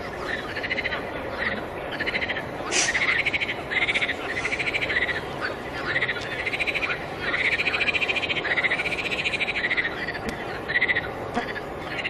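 A chorus of frogs calling from a pond: many overlapping rattling croaks, each rising and falling in pitch, repeating about once a second.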